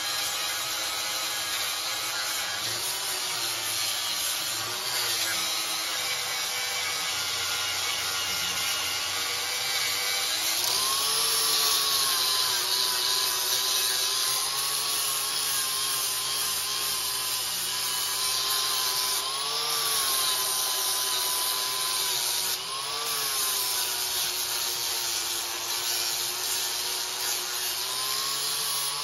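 Angle grinder grinding the corner of a steel grille frame into a rounded radius, running without a break. Its motor whine sags under load and rises briefly a few times as the disc comes off the metal.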